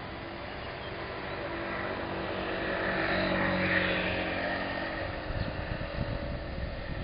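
A motor vehicle passing by: its engine and noise grow louder to a peak about halfway through, then fade away. Irregular low rumbling follows near the end.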